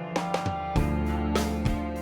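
Background music: guitar-led instrumental with steady plucked or strummed notes.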